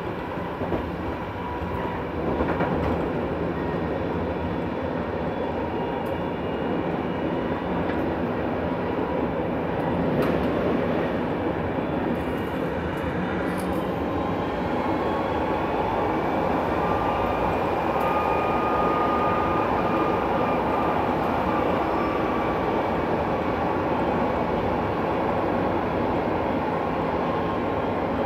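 Interior noise of a tram in motion: a steady rumble of wheels on rails and running gear heard inside the passenger car. About halfway through, a high whine rises slightly in pitch and then holds for several seconds.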